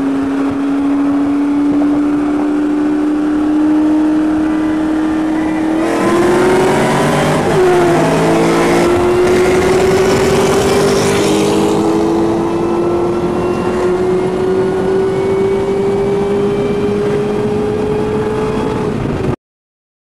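V8 engines of a 2004 SVT Cobra (supercharged 4.6-litre) and a C6 Corvette Z06 (7.0-litre LS7) running hard at full throttle in a roll race, their pitch rising slowly and steadily. About six seconds in a loud rush of wind joins in for several seconds and the pitch dips briefly around seven and a half seconds in, then climbs again until the sound cuts off suddenly near the end.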